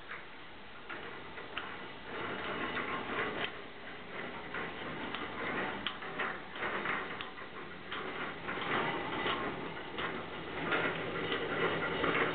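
Homemade trommel turning, its expanded-metal screen drum belt-driven by a 12-volt two-speed windshield washer motor and riding on plastic support wheels, giving off uneven light clicking and rattling. The sound comes in a second or two in.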